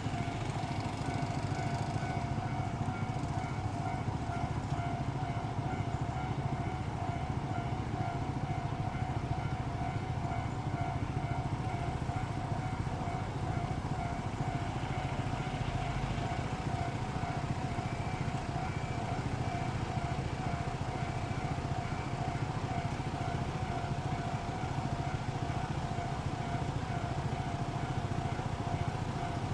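Steady low rumble of road vehicle engines and traffic at a level crossing.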